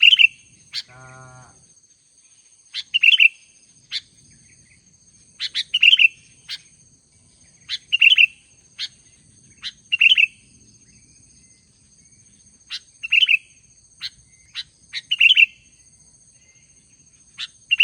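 Albino sooty-headed bulbul singing: short bursts of loud chirping notes, one phrase about every two seconds, over a steady high-pitched ringing.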